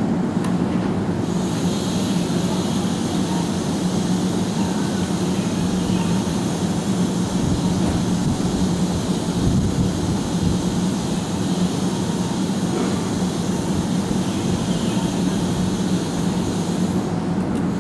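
Keihan 9000-series electric train standing at a station platform with its doors open, its onboard equipment humming steadily. A steady high hiss starts about a second in and stops just before the end.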